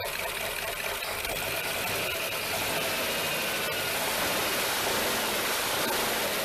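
Carbureted engine of a barn-find Lincoln Continental idling steadily, freshly started after sitting about two years. It sounds nice and runs smoothly, growing slightly louder near the middle.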